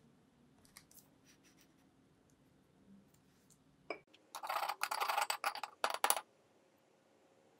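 Plastic cookie cutter being worked in flour and rolled butter-cookie dough: light ticks, a sharp click about four seconds in, then about two seconds of dense scratching and rustling as it is pressed and twisted.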